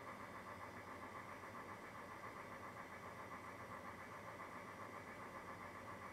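Steady low mechanical hum that keeps one even level throughout, with no splashes, knocks or voices standing out.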